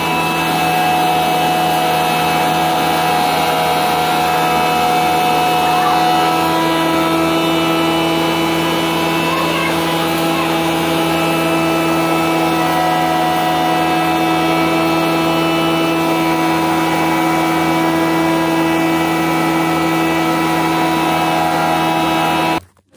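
Two-head pulveriser flour mill running, its electric motor driving the grinding heads by belt: a loud, steady hum with several held tones. It cuts off suddenly near the end.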